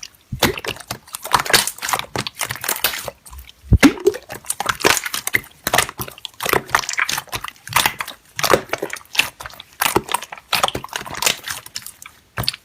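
Slime being pressed and kneaded by hand: irregular sticky crackles and pops, with a louder squelch about four seconds in.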